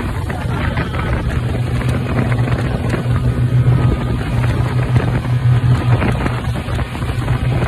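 Speedboat under way at speed: its engine runs with a steady low hum, mixed with wind buffeting the microphone and the rush of water from the wake.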